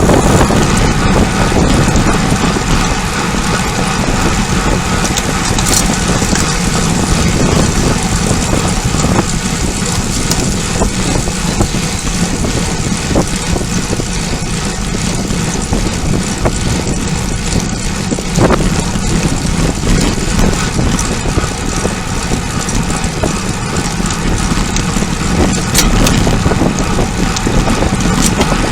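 Loud, steady wind rush on the microphone of a camera riding along on a bicycle at sprint speed, with a few brief clicks.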